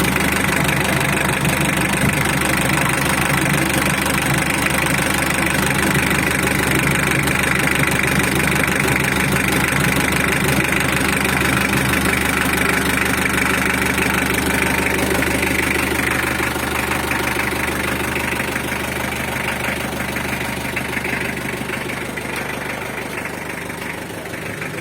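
Freshly overhauled Mitsubishi L300 engine idling steadily, easing slightly in loudness over the last several seconds.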